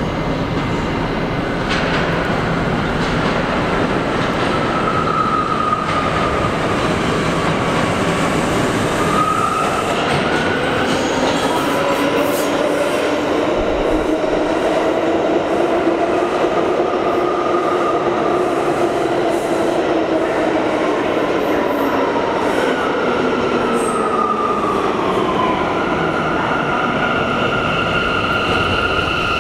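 Bombardier R179 subway train running into an underground station and slowing: a steady rumble of wheels on rails, with whining tones that rise and fall in pitch as it brakes, wheel squeal, and a steady squeal from near the end as it nears a stop.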